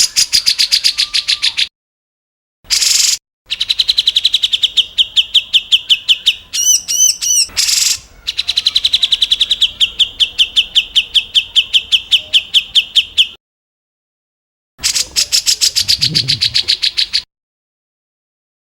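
Recorded songbird calls: fast, harsh trills of rapidly repeated sharp notes, in several segments that start and stop abruptly with silent gaps between them, and a brief run of arching whistled notes near the middle. This is the harsh 'tembakan' call type used in masteran tracks to tutor songbirds.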